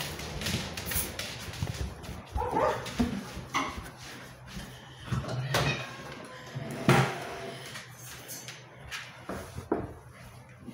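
A dog giving several short whines and yips, the loudest about seven seconds in, among scattered light knocks.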